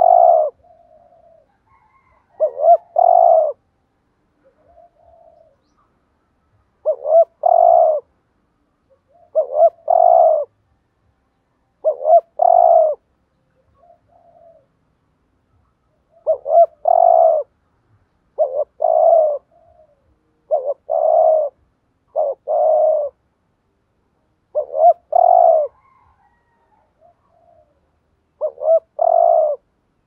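Spotted dove cooing in short repeated phrases, each a few quick notes ending in a longer coo, roughly one phrase every two seconds, with a few longer pauses and soft quieter notes in between.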